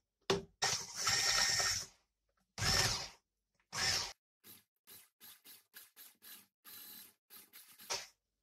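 Electric hand mixer with twin whisk beaters running in runny batter in a glass bowl. The sound cuts in and out in choppy bursts for the first few seconds, then comes as a quick run of short pulses, several a second.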